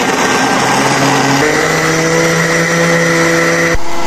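Electric countertop blender running, whirring as it blends mango pieces with milk and sugar into juice. About one and a half seconds in, its motor pitch steps up and holds steady, and the sound changes abruptly near the end.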